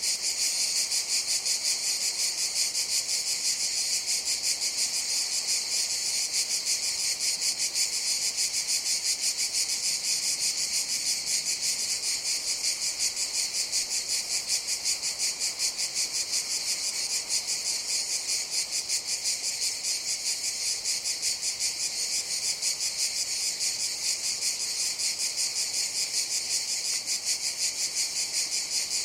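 Cicadas calling in a steady chorus: a high, shrill buzz with a fast, even pulsing that carries on without a break.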